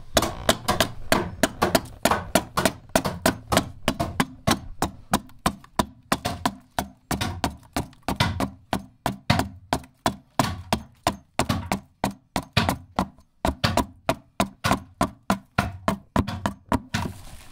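Hand adze (keser) chopping into the inside of a mulberry saz bowl as it is hollowed out: a steady run of sharp wooden chops, about three a second.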